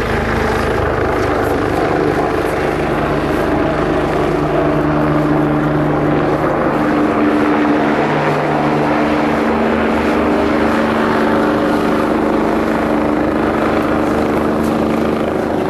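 Sightseeing helicopter flying close by, its rotor beating steadily over a continuous engine tone.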